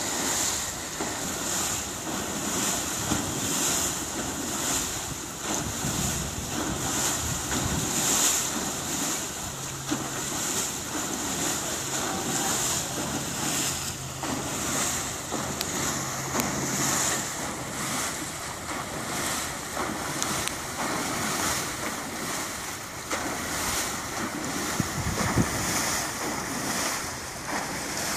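Ship's propeller turning half out of the water, its blades churning and splashing the surface in regular surges about once a second, with wind on the microphone.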